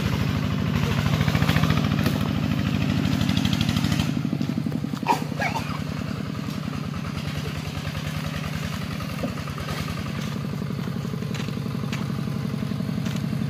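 Small tractor's diesel engine chugging steadily under load as it hauls a trailer of sawn timber along a rough track. It gets somewhat quieter after about four seconds as it pulls away.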